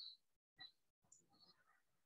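Near silence: room tone with a few faint, short high-pitched chirps.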